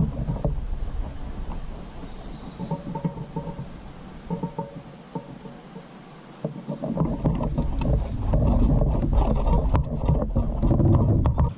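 Water splashing and knocking around a fishing kayak on a river, with wind rumbling on the microphone. It gets louder and busier, with many sharp splashes and clicks, in the last four or five seconds.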